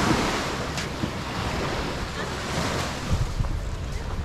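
Waves washing on a beach in a steady hiss, with wind buffeting the microphone and a stronger gust about three seconds in.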